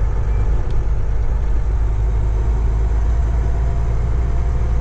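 Semi truck's diesel engine running steadily as the truck drives, heard from inside the cab as an even low drone.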